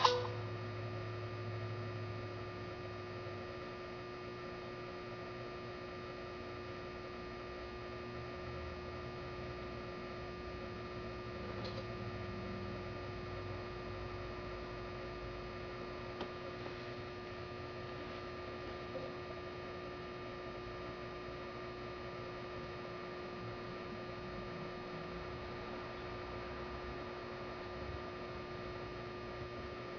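Steady electrical hum with a few fixed tones over low room noise, unchanging throughout.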